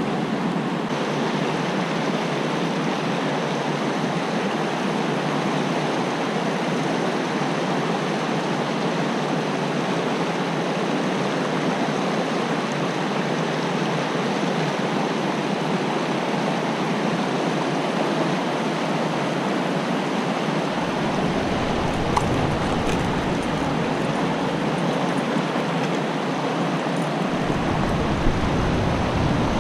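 Creek water rushing steadily over rocks in a fast current.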